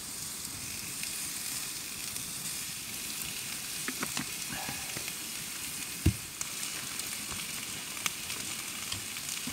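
Lamb cutlets sizzling steadily on a grill over a campfire, with a few light knocks and one sharper thump about six seconds in.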